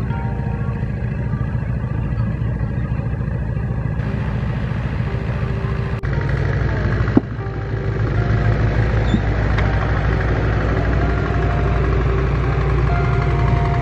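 An engine running steadily with a low, even beat, getting somewhat louder after about eight seconds, with one sharp click a little after seven seconds.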